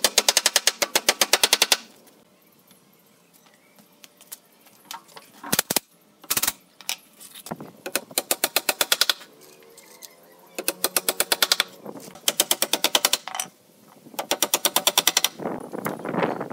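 Cordless impact driver hammering in five short bursts of one to two seconds each, about a dozen rapid blows a second, as screws are driven into the wooden frame.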